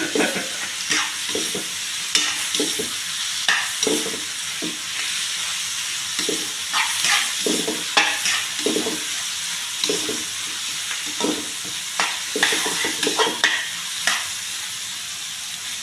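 Strips of carrot, bell pepper and ginger sizzling in a hot wok while a spatula stirs and scrapes them: a steady sizzle broken by irregular scraping strokes about once or twice a second.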